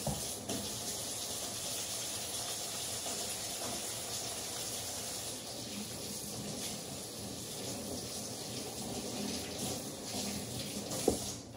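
Kitchen faucet running into the sink while hands are washed under it: a steady rush of water. A sharp knock sounds near the end, and then the water stops.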